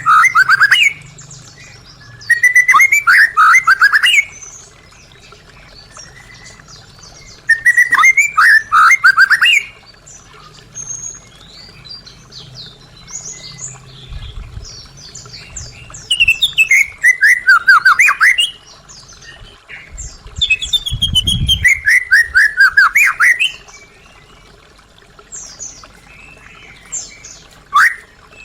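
White-rumped shama (murai batu) singing: loud phrases of quick, falling whistled notes come every few seconds, with quieter notes between them. Two brief low thumps sound in the middle.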